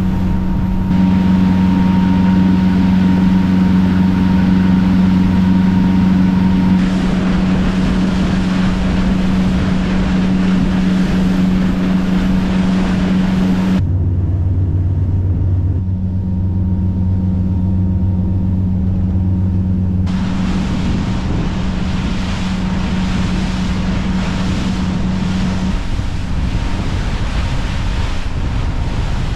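Motorboat engine running underway, a steady low hum, mixed with wind on the microphone and rushing water. The hum and the noise shift abruptly several times, as between separate shots.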